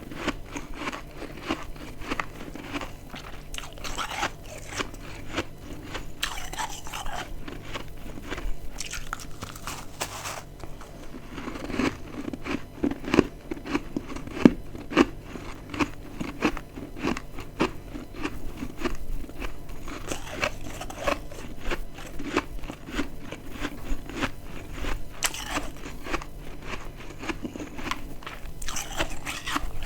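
Close-miked biting and chewing of dry, crispy freezer frost chunks: a dense run of rapid crackling crunches, with one sharper, louder crunch about halfway through.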